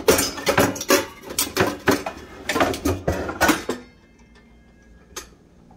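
Stainless steel pots and pans clanking and scraping against each other on a cabinet shelf as a copper-bottom Revere Ware pan is pulled out: a quick run of metal knocks for about four seconds, then a single faint click about a second later.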